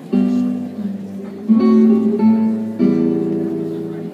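Music: acoustic guitar strumming chords, a new chord struck about every second and left to ring, starting suddenly at full level.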